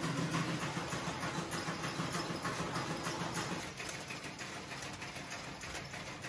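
Candy-forming machine running, its gears and rollers giving a steady mechanical hum and rattle. About three and a half seconds in the hum drops away and a quieter rattle carries on.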